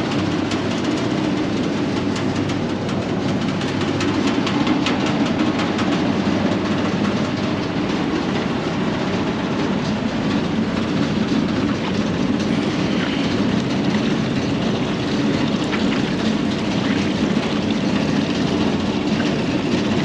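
Rooftop HVAC units and a kitchen exhaust fan running: a loud, steady mechanical hum with a scatter of faint clicks over it.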